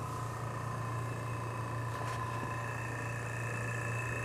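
1947 Kelvinator refrigerator compressor running steadily just after start-up on a test run: a low, even hum with faint steady higher tones above it.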